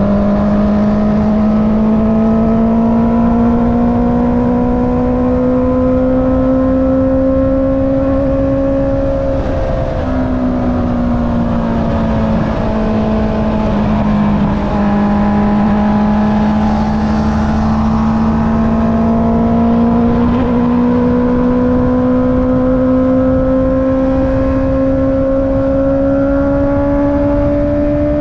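Honda CB650R's inline-four engine through an Akrapovic exhaust, under way on the road. The engine note climbs slowly, drops suddenly about ten seconds in as at a gear shift, eases off, then climbs steadily again.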